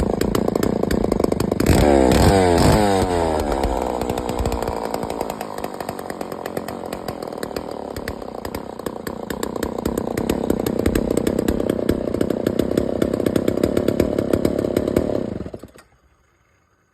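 Homelite 2100 Special two-stroke chainsaw running. It is revved up about two seconds in, settles back to a lower steady run, and shuts off about a second before the end.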